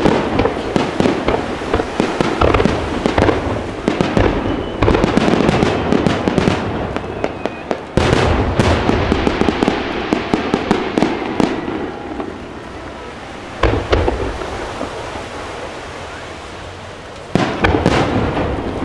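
Aerial fireworks shells bursting: dense rapid crackling and popping, then a sudden burst of heavy booms about eight seconds in. The sound fades to a lower rumble, broken by two more single sharp bangs later on.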